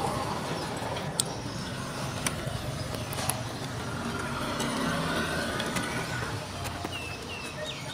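A motor vehicle engine running steadily, under a few sharp clicks as the plastic casing and circuit board of a CD/cassette boombox are handled.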